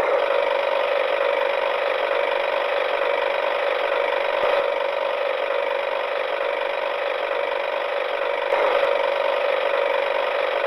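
A small geared motor running steadily, an even whirring with a constant hum.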